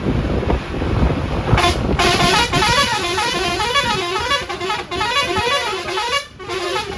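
A warbling vehicle horn starts about a second and a half in, its pitch sweeping up and down about twice a second, over rumbling wind and road noise from the moving bus. It breaks off briefly near the end and then starts again.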